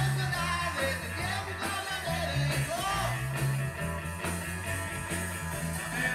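Rock band playing live, with a man singing over electric guitar, bass guitar and drums.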